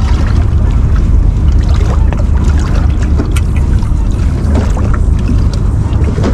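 Small fishing boat underway: a loud, steady low rumble of the boat's motor mixed with wind buffeting the microphone, with a few faint clicks.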